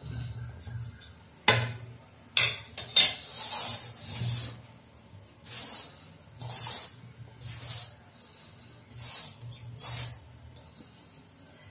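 Damp rice flour being rubbed and tossed by hand in an aluminium kadai to make it crumbly for puttu: a string of dry, rustling scrapes about once a second. A few sharp knocks against the pan come in the first few seconds.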